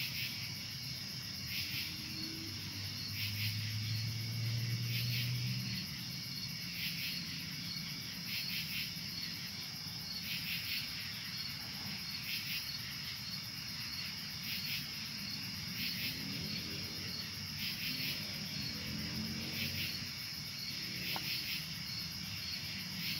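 Night crickets chirping in a steady chorus, a high, constant trill with rhythmic pulses a little more than once a second. A low hum swells briefly a few seconds in.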